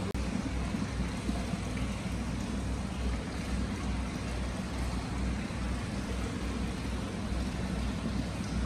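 Hot spring water pouring steadily into a stone basin and spilling over into the bath, a constant rushing with a low rumble. It cuts out for a split second at the very start.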